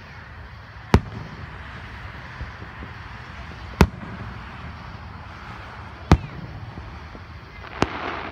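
Aerial firework shells bursting: four sharp bangs a couple of seconds apart, the last one fainter, near the end.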